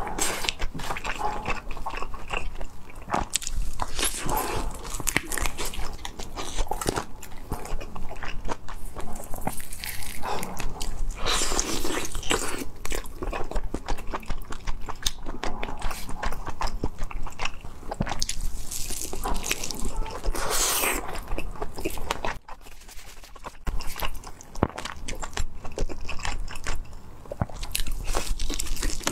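Close-up eating sounds of a whole chili-coated roast chicken: biting, tearing and chewing the meat and skin, a dense run of wet smacks and small clicks. It goes quieter for a couple of seconds a little over two-thirds of the way through, then picks up again.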